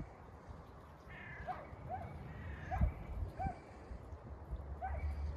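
Faint short animal calls repeated about once a second, some higher and harsher, with a couple of soft low thumps.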